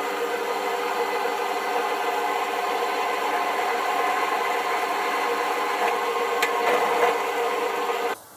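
Pillar drill running with a centre drill cutting into a metal arbor and washer, a steady sound with a constant motor whine. It cuts off abruptly about eight seconds in as the drill is switched off.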